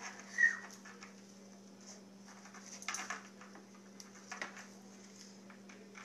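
Faint rustling and crackling of a microwaved corn husk as the cob is squeezed out of it, over a steady low hum. About half a second in comes one short, high squeak, the loudest sound.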